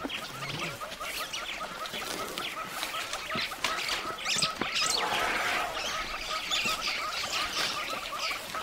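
Birds chirping outdoors: one call repeated quickly and steadily throughout at the same pitch, with scattered higher chirps over it. A brief rustle comes about five seconds in.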